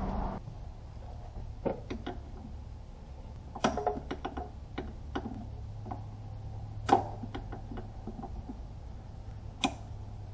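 Scattered sharp metallic clicks and knocks of hand tools and parts being handled at the back of a car engine bay, over a low steady hum. A louder rushing noise cuts off at the very start.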